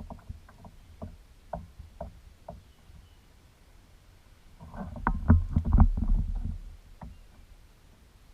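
A series of light knocks about twice a second, then a louder flurry of thumps and knocks with a low rumble, of the kind made by gear or a fish knocking against a small boat's hull.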